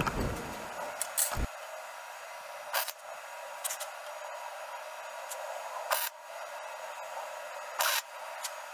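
Wire-feed (MIG) welder tack-welding steel square tubing: several short crackling bursts of the arc, each a fraction of a second, a second or two apart, over a steady hiss. A metal clank about a second in.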